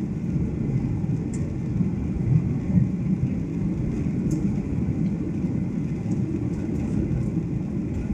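Steady low rumble of jet engines and airflow heard inside the passenger cabin of a Boeing 737 airliner in flight.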